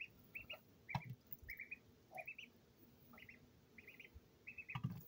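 A duckling peeping softly and repeatedly in short runs of two to four high notes while it feeds, with a few sharp clicks as its bill taps the plastic dish.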